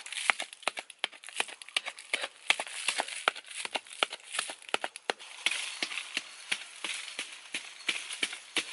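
A pointed wooden digging stick jabbed again and again into hard, dry soil: sharp, irregular strikes, several a second, with dirt being broken loose.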